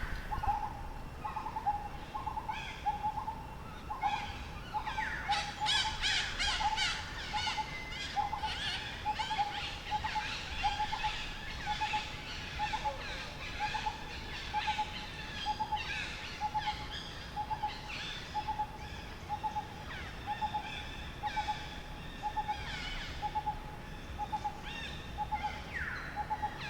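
Forest birdsong: one bird repeats a short hooting note at an even pace, roughly every three-quarters of a second, while other birds chirp and twitter.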